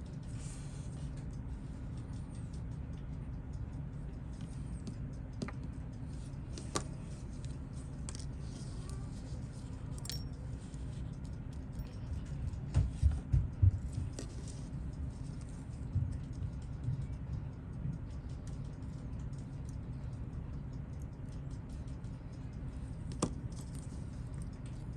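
Small scattered clicks and taps of metal watchmaker's tools on a watch case while old gasket pieces are picked out, with a short run of louder knocks around the middle, over a steady low hum.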